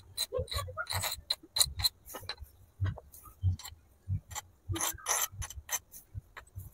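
A small metal spoon and miniature clay bowls clicking and scraping against each other as chopped vegetables are scraped from one bowl into another. It makes an irregular run of light clicks with a few short scrapes.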